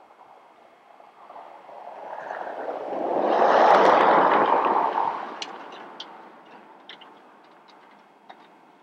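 A vehicle driving past on the road: its tyre and engine noise swells over a few seconds, peaks near the middle, and fades away. A few light clicks follow near the end.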